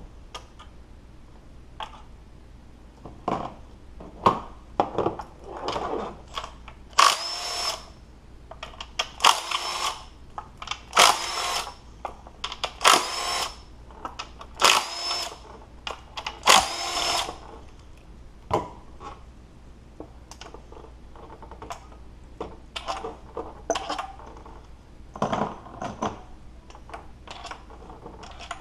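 Cordless power tool running in six short bursts of about a second each, roughly two seconds apart, spinning out the 12 mm bolts on the engine's intake. Scattered clicks and light knocks of bolts and tools being handled come before and after.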